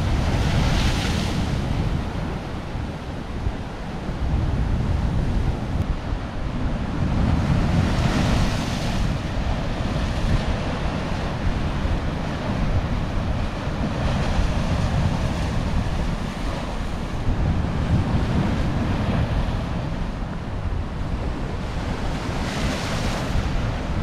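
Baltic Sea waves breaking against a breakwater of stone blocks, a continuous wash of surf with louder crashes about a second in, around eight seconds and near the end. Wind rumbles on the microphone.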